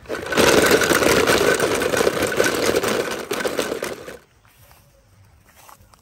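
A motor running with a dense, fast rattle for about four seconds, then cutting off abruptly.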